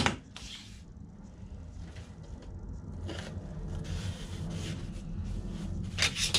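Hands rubbing and pressing on a foam wing core held with blue painter's tape, in a few short scratchy rubs, after a sharp knock at the start. A steady low hum runs underneath.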